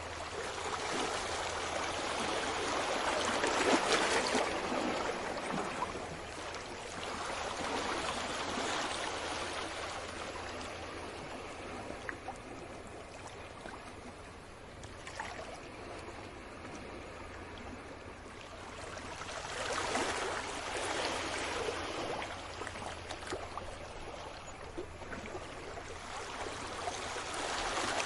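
Sea waves washing in. The wash swells about four seconds in and again about two-thirds of the way through, and eases to a lower rush in between.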